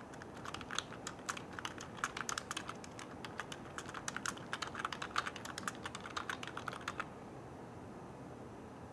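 Typing on a Dell computer keyboard: a quick, irregular run of key clicks that stops about seven seconds in, leaving faint hiss.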